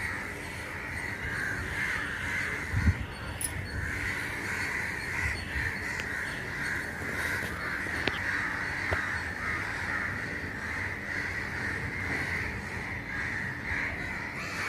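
A flock of crows cawing, many calls overlapping without a break, with a brief low thump about three seconds in.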